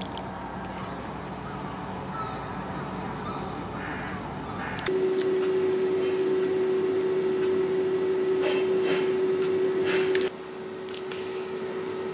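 A bumblebee buzzing at cyclamen flowers, a low steady hum. About five seconds in, it gives way suddenly to a louder, steady, single-pitched machine hum with a few sharp clicks; the hum drops in level a couple of seconds before the end.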